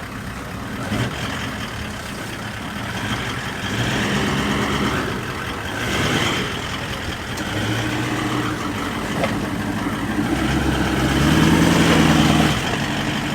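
A four-wheel-drive's engine running at crawling pace over rough ground. It revs up and eases off a few times, with the longest and loudest rev near the end.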